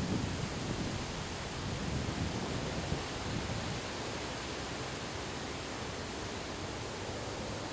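Windstorm wind blowing steadily, an even rushing hiss, with low gusty rumble in the first second or so.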